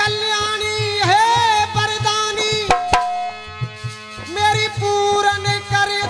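Male voice singing a devotional folk song in long, wavering held notes, over a steady drone and quick, even hand-drum strokes at about four a second.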